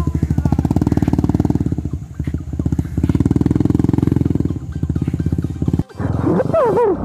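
Motorcycle engine running with a rapid firing beat that surges twice and cuts off abruptly near the end. After that comes a brief wavering, gliding pitched sound.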